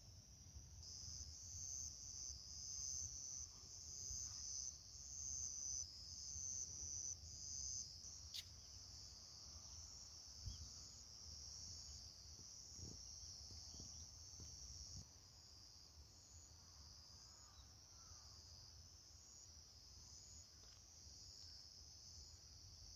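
Faint, high chorus of crickets, pulsing in short repeated trills for the first several seconds and then running steadily, over a low rumble. A single sharp click comes about eight seconds in.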